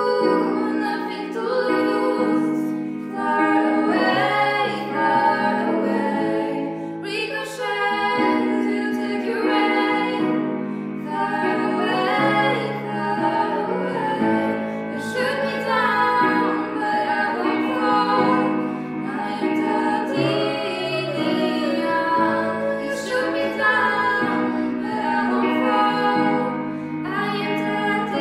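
Two young women singing a duet into handheld microphones, over steady instrumental accompaniment.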